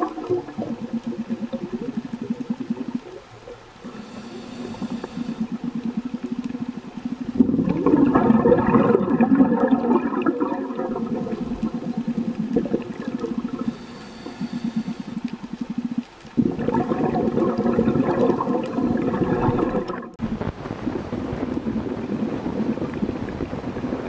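A scuba diver's regulator breathing underwater: two long bubbling rushes of exhaled air, each lasting about three seconds, with quieter water noise in between.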